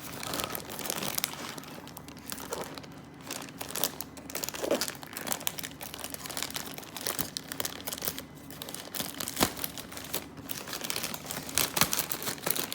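Parcel packaging being torn open and handled by hand: irregular crinkling and crackling of plastic wrapping, with some tearing.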